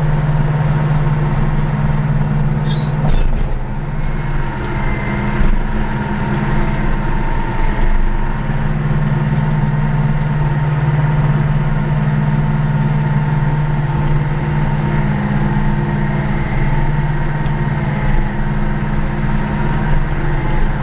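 Cat D9 bulldozer's diesel engine running steadily under load as the blade pushes dirt, with a few brief clicks about three seconds in.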